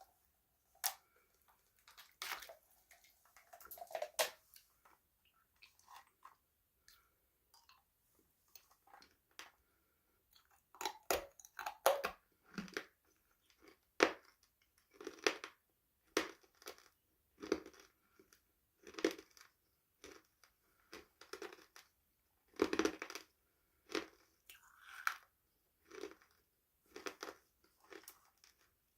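Close-up chewing of crunchy food: sharp crunches, a few scattered in the first ten seconds, then coming regularly about once a second.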